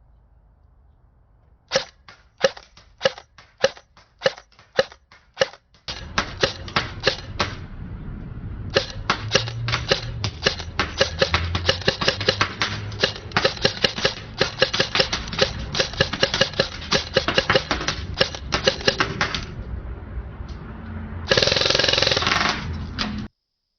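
Airsoft gun firing: single shots two or three a second, then faster strings of shots, ending in a dense, loud burst about two seconds long near the end.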